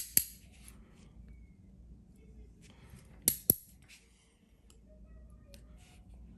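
Small metal clicks and ticks of padlock pins and springs being handled during disassembly: two sharp clicks at the start and two more about three seconds in, with faint ticking between.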